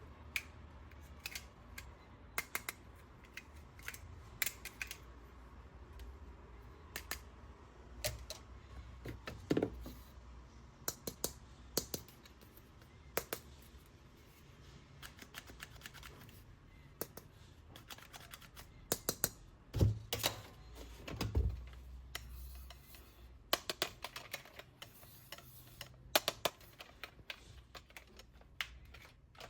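Irregular clicks and taps of toys and their packaging being handled, with a couple of louder knocks about two-thirds of the way through.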